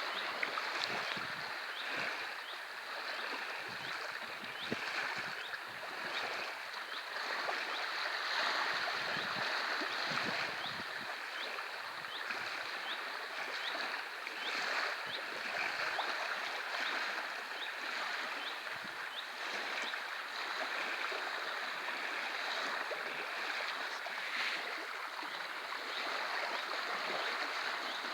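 Small waves lapping steadily at the edge of a sea loch, an even watery wash. A faint, short, high chirp repeats about once a second.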